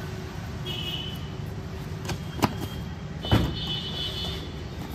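Steady low hum of road traffic around a roadside food stall, with two sharp knocks about two and a half and three and a half seconds in, the second the louder.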